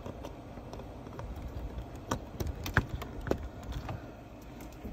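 A series of light clicks and taps from handling small plastic parts and test probes at a truck's dashboard charger socket, over a low steady background rumble.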